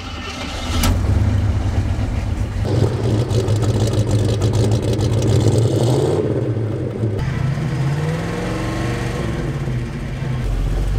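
A 1979 Jeep Cherokee Chief's engine catching about a second in and then being revved, the revs rising and falling a few times before dropping back.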